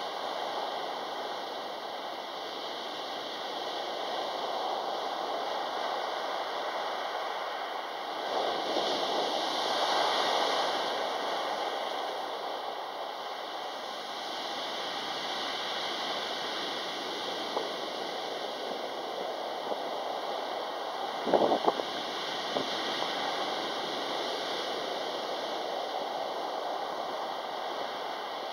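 Sea surf breaking and washing up a pebble beach: a steady rushing that swells about eight seconds in and eases off a few seconds later. About 21 seconds in, a brief cluster of sharp knocks stands out above the surf.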